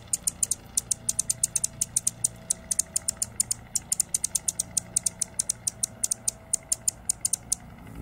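Male Anna's hummingbird calling: a fast, irregular run of sharp, high-pitched ticks, roughly eight to ten a second, that stops shortly before the end, over a faint low hum.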